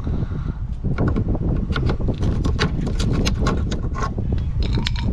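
Plastic pry tool working a plastic push clip loose from a 2015 Ford F-150's headlight trim: a run of irregular sharp clicks and taps of plastic on plastic, over a low rumble.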